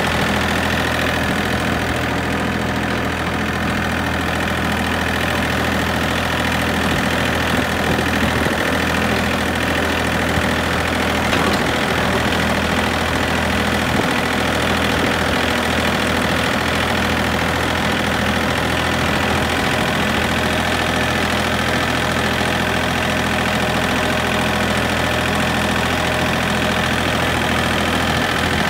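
Engine of a vehicle being driven along a path, running at an even speed with a steady, unchanging pitch and no revving.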